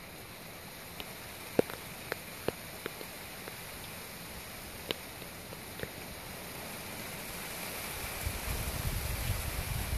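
Steady hiss of rain falling at night, with a few scattered sharp ticks. A low rumble builds over the last two seconds.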